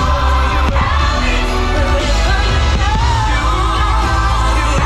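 Loud fireworks-show soundtrack: pop music with a singing voice over a heavy, steady bass. One brief sharp crack comes a little under a second in.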